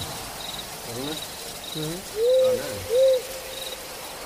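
Night ambience of crickets chirping in short, evenly spaced trills, with two loud hoots, each rising then falling, about two and three seconds in.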